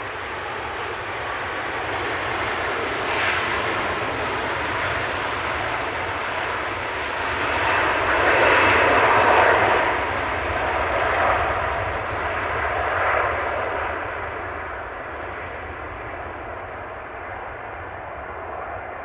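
Airbus A330's twin jet engines at takeoff power during the takeoff roll: a steady rush of noise that builds to its loudest about halfway through as the airliner passes, then fades as it lifts off.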